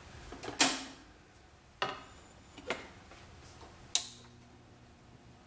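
An LP being set down on the turntable of a one-tube RCA Victor portable record player, then sharp clicks as its control knob is turned, four in all, the last about four seconds in. After that comes a faint steady hum from the amplifier, which the owner puts down to worn filter capacitors.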